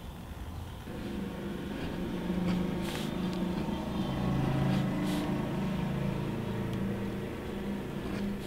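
Lino-cutting gouge pushed through a linoleum block, a low scraping buzz in long strokes starting about a second in, with two short clicks in the middle.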